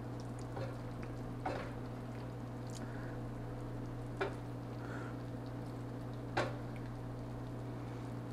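A utensil clinking and scraping against a pan as cooked ground turkey is scooped into a bowl: four short, sharp clinks spread over several seconds, the last two the loudest, over a steady low hum.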